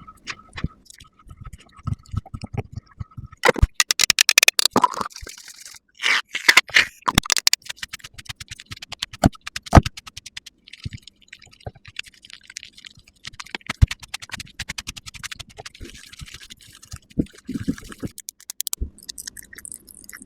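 Close-miked makeup ASMR handling sounds: many small clicks and taps of cosmetic cases and tools, with scratchy scraping and brushing, loudest in two stretches a few seconds in.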